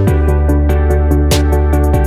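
Background music: an electronic track with a steady beat over sustained bass notes.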